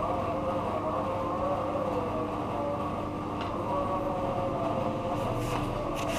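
A steady mechanical drone with a few held tones and slowly wavering pitches.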